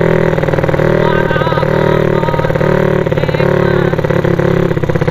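Small engine of a motorized bicycle ('sleep engine') running under way with a loud open exhaust, its fast, even firing beat holding steady with slight rises and dips in throttle.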